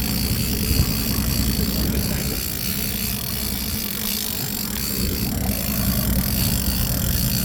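Boat engine running steadily at low speed, a constant low rumble under a hiss of wind and water.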